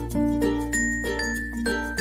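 Background music: a light tune of short pitched notes over a held bass line.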